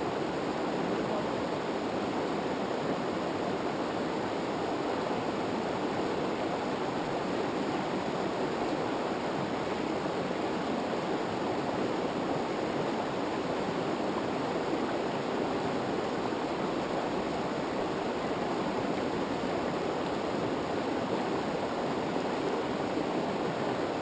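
Steady rush of river water over rapids, an even noise with no breaks.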